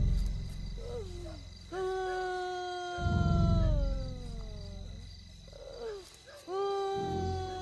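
Drawn-out howls, each sliding slowly down in pitch; one fades at the start, and new ones begin about two seconds in and again near the end. Deep low rumbles come in suddenly under them, at the start, about three seconds in, and near the end.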